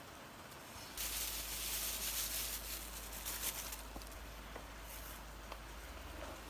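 Food sizzling in a hot pan, starting suddenly about a second in and easing off after a few seconds.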